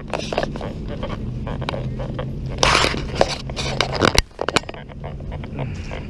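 Handling noise from a handheld camera carried while walking: scraping and rustling with sharp clicks, and a short harsh rustle about two and a half seconds in.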